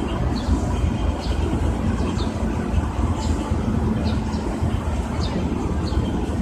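Steady low rumble of ship engines running across the harbour, with faint short high chirps repeating about once a second.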